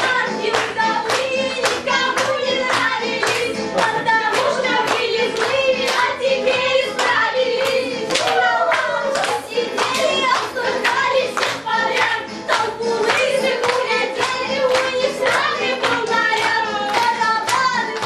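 A group singing a song together over music, with steady rhythmic hand-clapping keeping the beat.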